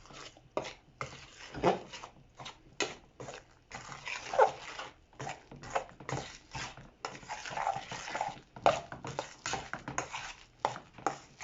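A spoon scraping and knocking irregularly against a pot while rice flour is stirred into hot water to make a stiff dough. There are a few short squeaky, pitched sounds among the scrapes.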